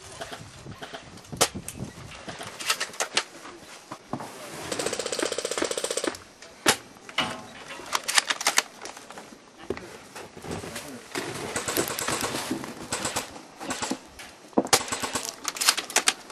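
Airsoft guns firing: scattered sharp single shots and a full-auto burst lasting about a second and a half, with more rapid fire further on.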